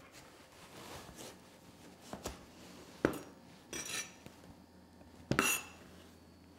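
Chef's knife cutting the knobbly root skin off a celeriac and knocking down onto a cutting board. There are four separate cuts and knocks, the loudest about five seconds in.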